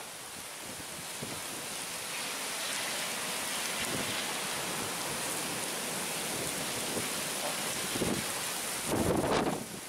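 Heavy thunderstorm rain falling steadily, a dense even hiss, with a brief louder low rush near the end.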